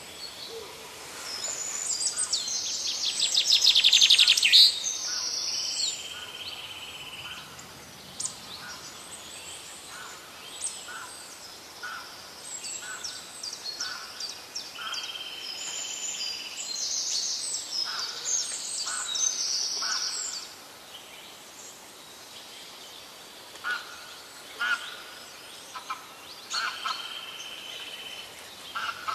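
Several birds chirping and singing, with a loud rapid trill about four seconds in and a drawn-out whistled note that comes back three times.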